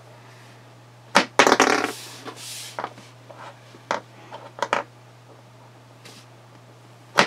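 A small plastic banana flicked from a toy launcher: a sharp snap about a second in, then a short clatter as it lands and bounces on the hard table top, followed by a few light clicks as it is picked up and set down again.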